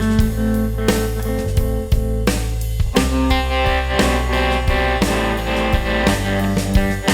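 Electric guitar played through a Pogo Pedals Vintage Trem tremolo pedal, holding chords and notes over a band backing with a drum kit.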